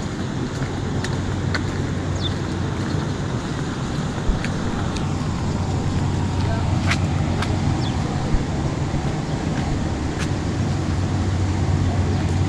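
A steady low motor drone, getting slightly louder, with scattered light clicks and ticks over it.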